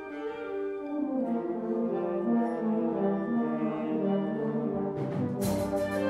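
Concert wind band playing sustained chords, the brass carrying a line that steps downward. About five seconds in the full band enters louder, with repeated percussion strikes.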